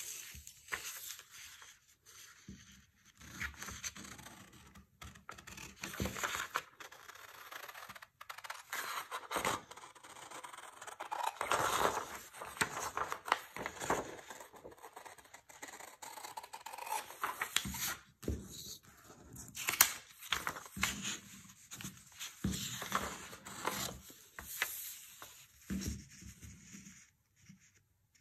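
Scissors cutting along the outline of a paper pattern: an irregular run of short snips, with the paper rustling and crinkling as the sheet is turned between cuts.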